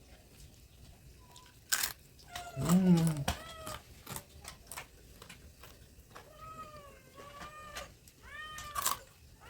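A cat meowing repeatedly: one long, low, falling meow about two and a half seconds in, then a string of short, higher meows in the last few seconds. A single sharp knock comes just before the first meow.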